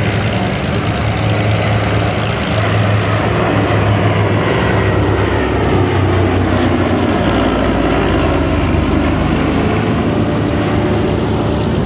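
Canadian Vickers-built PBY-5A Catalina flying past, its two Pratt & Whitney R-1830 Twin Wasp radial engines and propellers droning steadily and loudly.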